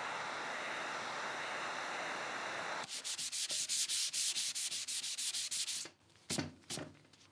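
Handheld steamer hissing steadily with its nozzle held on a dent in a wood table top, steam swelling the crushed fibres back up. About three seconds in the hiss turns to a rapid pulsing, about seven pulses a second, for about three seconds, and two short knocks follow near the end.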